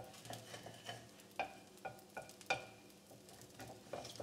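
Wooden spatula stirring basmati rice grains being toasted in ghee in a pot, with a run of light, irregular knocks and scrapes of the spatula against the pot and a faint sizzle underneath.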